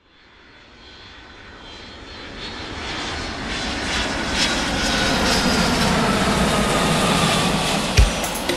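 Jet airliner flying past, fading up from silence and building over several seconds into a loud rush with a slowly falling whine. A drum hit comes in near the end.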